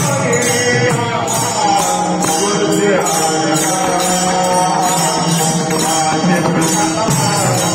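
Music: a voice sings a gliding, ornamented melody over steady jingling percussion.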